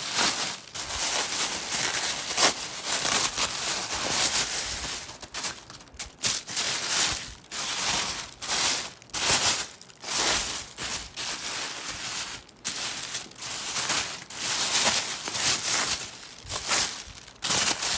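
Thin white tissue wrapping paper being handled and pulled apart by hand, rustling and crinkling in quick, uneven rushes as it is cleared away from a new leather tote.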